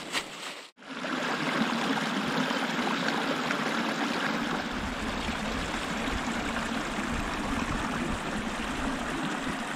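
Shallow creek running over rocks and tree roots: a steady babbling rush of water that starts just under a second in, after a brief drop-out.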